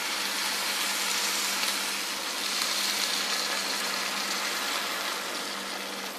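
Masala and paneer sizzling in a hot pan as water is poured in from the steel grinder jar: a steady hiss that swells in the middle and slowly dies down toward the end, over a faint low hum.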